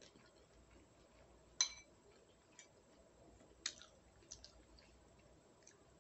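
A quiet room with a few faint, sharp clicks, one of them about a second and a half in ringing briefly like a light clink of a hard object, and another a couple of seconds later.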